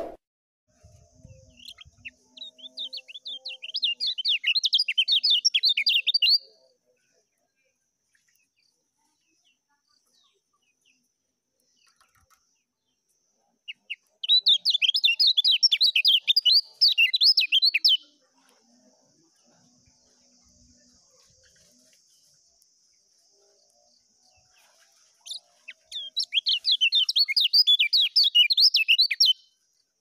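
Kecial kuning (a white-eye) singing its fast 'ngejos' song in three bursts of a few seconds each. Each burst is a rapid run of high chattering notes, separated by pauses of several seconds.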